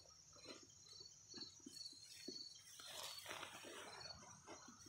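Near silence: faint footsteps through grass, with faint crickets chirping in a steady repeating pattern.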